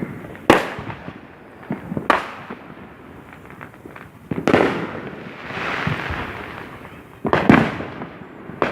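Fireworks going off: a series of sharp bangs a second or two apart, with smaller pops between them. A hissing trail lingers for about two seconds after the bang in the middle, and a cluster of bangs comes near the end.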